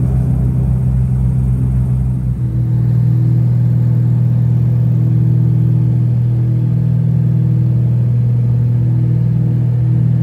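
Engines of a Tecnam commuter airplane droning steadily, heard from inside the passenger cabin in flight; the low hum evens out into a steady tone about two and a half seconds in.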